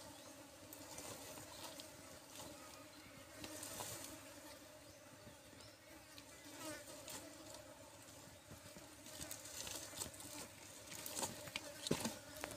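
Flies buzzing steadily, with scattered faint clicks that grow a little louder near the end.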